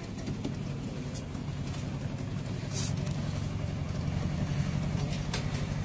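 Small diesel engine of a four-wheel diesel-hydraulic miniature railway locomotive running steadily as it hauls a passenger train, a low drone that grows a little louder about halfway through, with a few light clicks.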